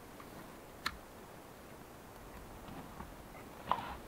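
A single sharp metallic click from a hunting gun's action as it is handled, about a second in. Near the end comes a short cluster of softer clicks and knocks as the gun is set down and gear is moved.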